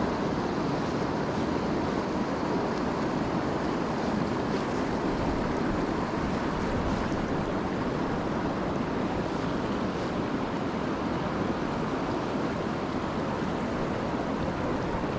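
Steady rush of a fast, shallow river running over riffles and rapids, an even, unbroken wash of water noise.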